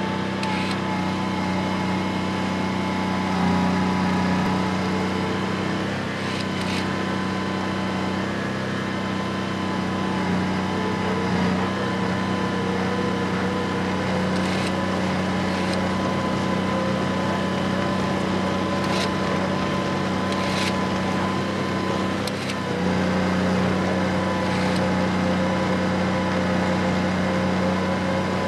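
Snow groomer's engine running steadily under load, with a steady whine above the engine note and a few short clicks or knocks. The engine sound dips briefly a little past two-thirds of the way in, then picks back up.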